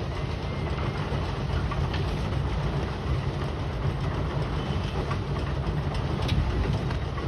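Pile-driving rig running with a steady, heavy low rumble, without distinct separate hammer blows.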